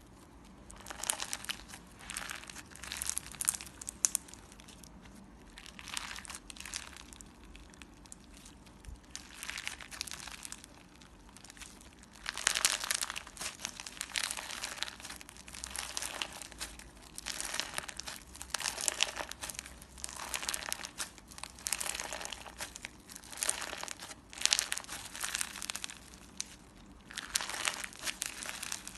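Clear slime with glitter and small balls mixed in, worked by hand. It gives repeated bursts of crisp, crinkly noise, each about a second long, with short pauses between.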